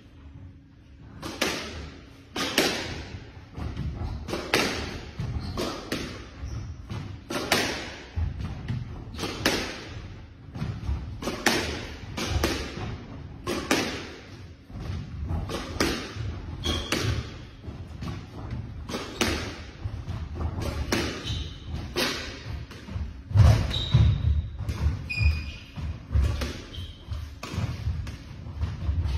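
Squash ball cracking off rackets and the court walls about once a second through a rally, each hit ringing in the enclosed court. Between the hits come short high squeaks of court shoes on the wooden floor, mostly late on.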